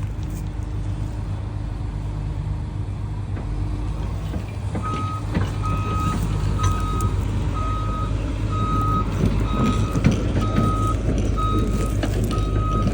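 Diesel engine of heavy construction equipment, likely the excavator, running steadily. About five seconds in, a backup/travel alarm starts beeping, a single high tone roughly once a second.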